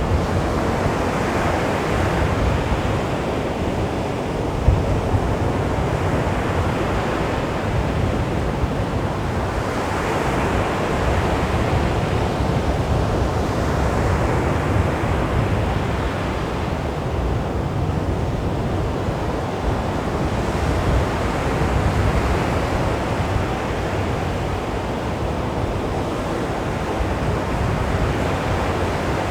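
Sea waves washing onto a beach in a steady surf, swelling and easing in slow surges every several seconds.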